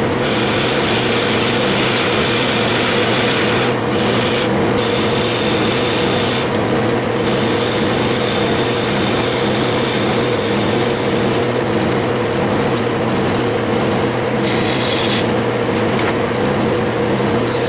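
Metal lathe running at a steady hum while a carbide-insert tool cuts the end of a cast aluminium handwheel, with a continuous hiss of cutting and chips.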